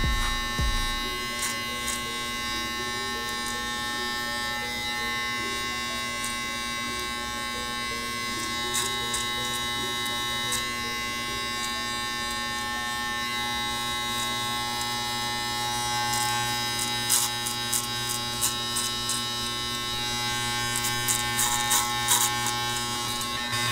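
Andis Master electric hair clippers with a guard buzzing steadily as they cut short hair, with a run of sharp clicks near the end.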